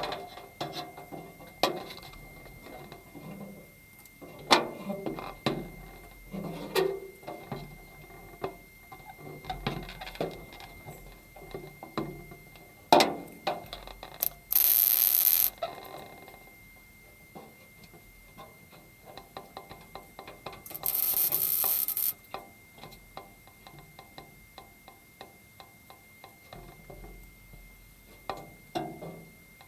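Metal knocks, clanks and clicks from work on car body panels, irregular throughout, with two loud bursts of hissing noise about a second and a half long, one in the middle and one about two-thirds of the way through.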